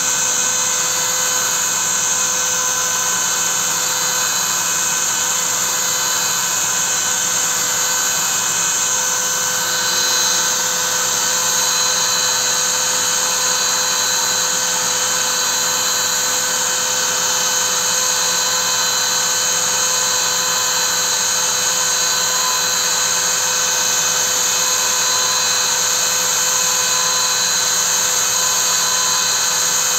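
CNC router spindle motor running at speed while its small engraving bit cuts into a hardwood slab: a loud, steady whine with cutting noise.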